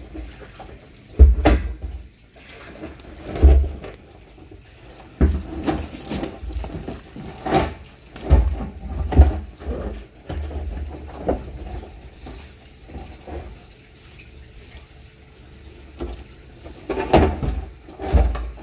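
Rinse water from a garden hose sloshing inside a plastic drum as it is tilted and rocked to wash out soap suds, with irregular thumps from the drum being handled.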